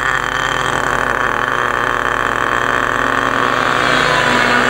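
Radio-controlled model helicopter in flight, its small engine and rotor giving a steady high-pitched whine that rises slightly in pitch near the end.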